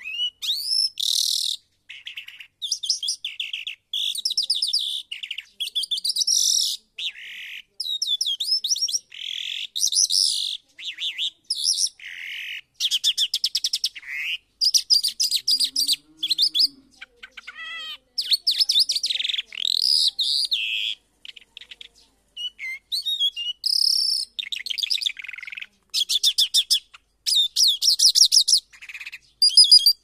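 A caged lark singing a long, varied song of rapid chirps, trills and whistled glides in short phrases with brief pauses between them.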